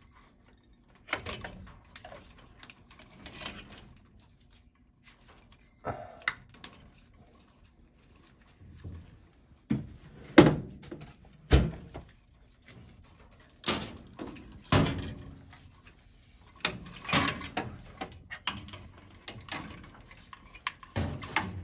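Irregular knocks, clicks and clatter of hands and tools working on a zone valve head and its wiring, with two louder thumps around the middle.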